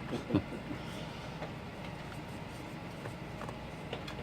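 Quiet steady room hum with a few faint, short clicks.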